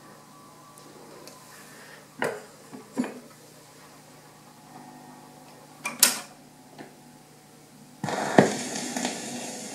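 Portable record player being handled: a few sharp mechanical clicks and knocks over a faint hum, then, about eight seconds in, the stylus is set down on a spinning 78 rpm shellac record with a thump, followed by steady surface hiss and crackle from the lead-in groove.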